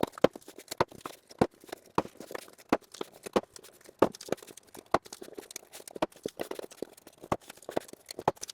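Corrugated cardboard being folded and pressed into shape by hand, with irregular sharp taps and knocks as the panels and tabs are pushed into place.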